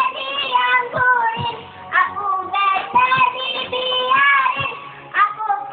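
Singing voice over backing music with a steady beat.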